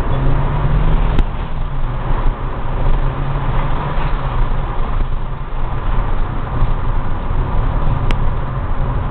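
Car engine and road noise heard from inside the cabin while driving: a steady low drone under an even rush of tyres and wind. Two brief clicks, about a second in and near the end.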